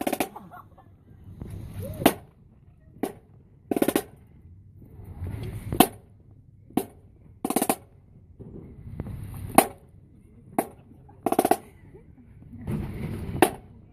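High school marching band drumline playing a marching cadence: sharp accented snare and cymbal hits about every two seconds, with lighter single clicks and short rolls between.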